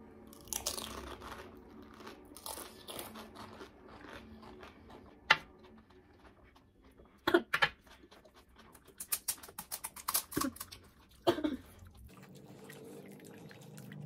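Crisp, hollow panipuri shells crunching and being chewed, with sharp crackles now and then and a quick run of them a little past the middle.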